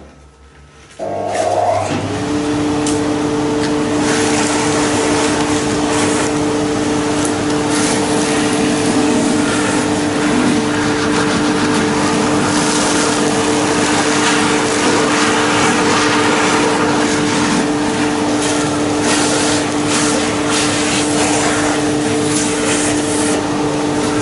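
Vacuum cleaner switched on about a second in, its motor spinning up within a second to a steady whine. It runs on under a loud rushing hiss that keeps rising and falling as it vacuums.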